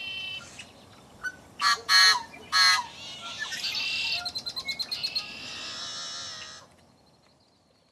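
Outdoor birds calling: three loud calls about two seconds in, then a quick rattling series of about ten notes a second, then the sound fades out about seven seconds in.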